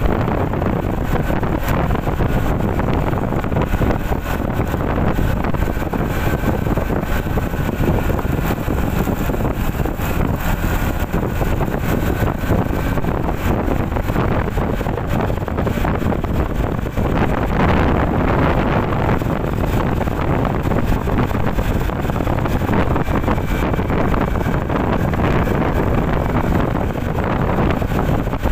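Wind rushing over the microphone of a moving motor scooter at about 50 to 60 km/h, steady throughout, with the engine and road noise running under it.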